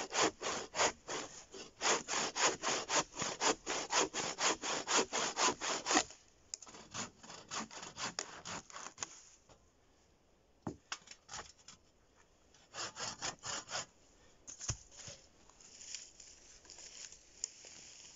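Coarse-toothed wood hand saw (8 mm tooth pitch) cutting into dense, slightly damp deadwood, about four rasping strokes a second for six seconds. Then slower, fainter strokes with a pause, a short run of strokes and a single knock.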